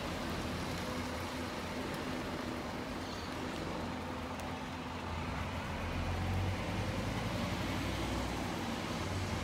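Low engine hum of road traffic, with a steady outdoor hiss; the drone grows stronger about six seconds in.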